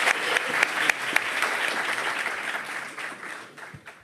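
Audience applauding, the clapping fading away over the last second.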